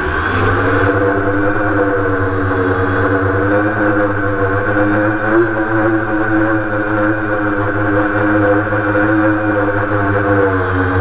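DJI Phantom quadcopter's motors and propellers, heard from the GoPro mounted on the drone: the motors come up to lift-off speed at the start, then run as a steady multi-pitched whir that drifts slightly in pitch as it climbs and flies. There is a brief knock near the start.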